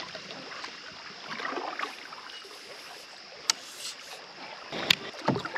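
Canoe being paddled on a river: soft paddle swishes and water lapping and dripping, with two sharp knocks a second and a half apart.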